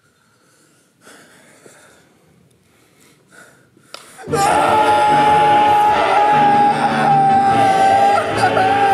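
A few faint soft sounds, then loud music with a held high note cuts in suddenly about four seconds in.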